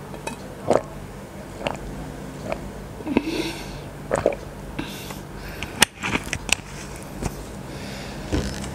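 Close-miked mouth sounds of drinking and eating: sips, swallows, lip smacks and wet clicks, spaced about a second apart, the sharpest one about six seconds in.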